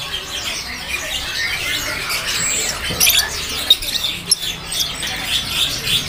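Caged lovebirds chirping and squawking: many short, high calls overlapping at random.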